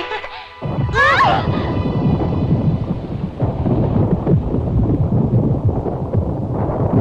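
A deep, loud earthquake-like rumble of the volcanic island sets in suddenly about half a second in and keeps on steadily, as a cartoon sound effect. A brief wavering high sound rises over it about a second in.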